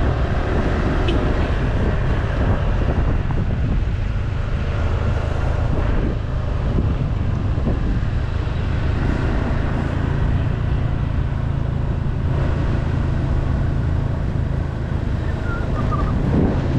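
Motor scooter engine running steadily while riding, a continuous low rumble.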